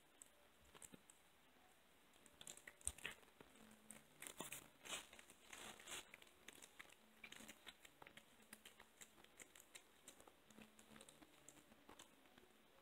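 Kitten chewing raw chicken wing and ground chicken: faint, irregular clicks and smacks, busiest from about two to six seconds in.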